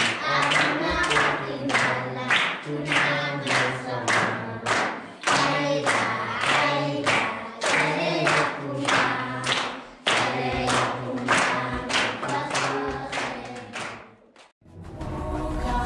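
Schoolchildren singing a song together in chorus, clapping in time at about two claps a second. Near the end the singing stops and background music comes in.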